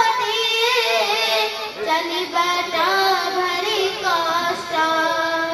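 A young girl singing solo through a microphone, holding long wavering notes with melodic ornaments.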